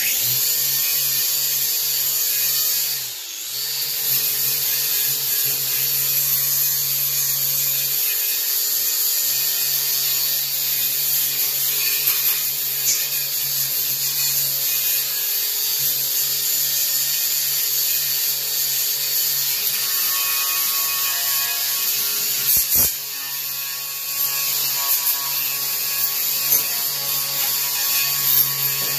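Grinder with a wire wheel running steadily, scrubbing rust and loose paint off a steel mower deck to bare it for primer. The motor note dips briefly about three seconds in and again about three-quarters of the way through, as the wheel is lifted or shifted.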